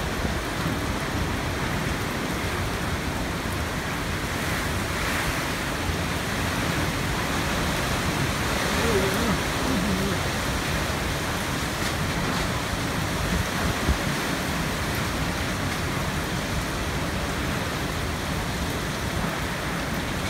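Typhoon-force wind with heavy rain, a steady rushing noise that swells a little partway through as gusts come and go.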